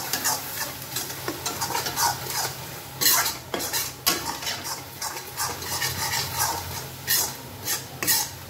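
A flat metal spatula stirs and scrapes chopped garlic, ginger and green chillies around a black iron kadhai, in quick repeated strokes against the pan, while the mixture sizzles as it fries with roasted wheat flour. A few louder scrapes come about three seconds in and again near the end.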